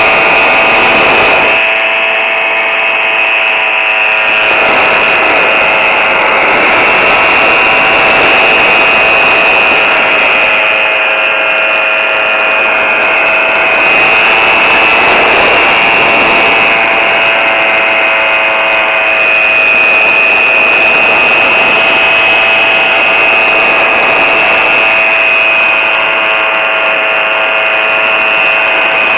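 Powered paraglider's motor and propeller running steadily in flight: a loud, even, high-pitched buzz that eases slightly a few times.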